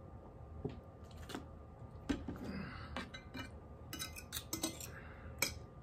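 Cutlery clinking and scraping against a plate while eating, in scattered light taps with a quick run of them about four seconds in.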